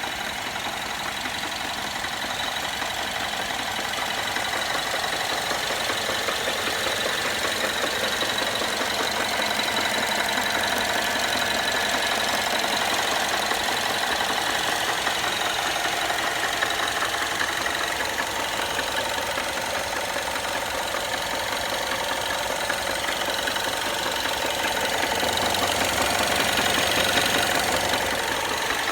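BMW N13 1.6-litre turbocharged four-cylinder petrol engine idling warm with a steady, rapid light tapping knock from inside the engine, the fault the owner is showing.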